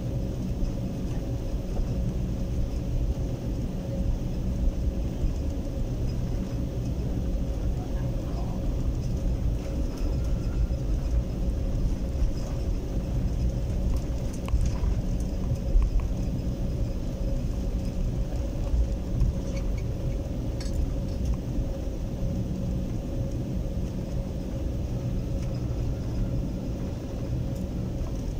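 Airliner cabin noise while taxiing: the jet engines at idle give a steady hum over a low rumble from the aircraft rolling along the taxiway.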